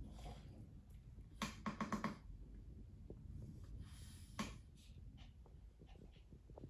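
Faint snuffling from small dogs playing with a plush toy on a blanket, with a quick run of short snuffles about a second and a half in and another single one near four and a half seconds.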